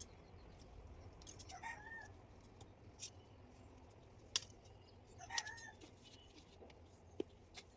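A domestic cat meowing twice, a few seconds apart, faintly, with a few light clicks in between.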